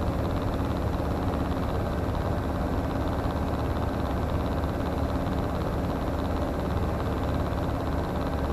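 Comco Ikarus C42C microlight's engine and propeller in cruise flight: a steady low drone.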